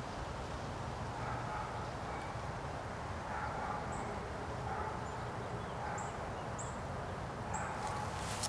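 Outdoor ambience: a steady low background rumble with a few short, high bird chirps from about four seconds in, and fainter bird calls lower down. Near the end, a few light clicks begin.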